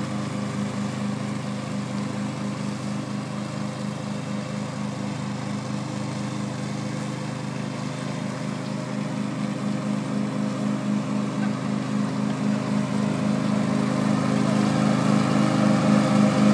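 Riding lawn tractor's engine running steadily while mowing grass, with an even pulsing throb, getting louder over the last few seconds.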